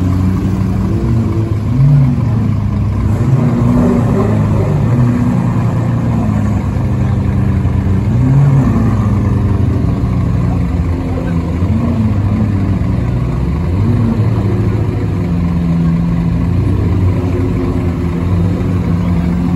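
Koenigsegg Agera's twin-turbo V8 running at low speed as the car creeps along, a deep engine note that rises and falls briefly several times and holds steady near the end.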